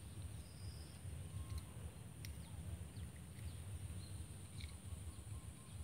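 Outdoor ambience: a steady high-pitched insect drone, a few short bird chirps, and a low rumble on the microphone.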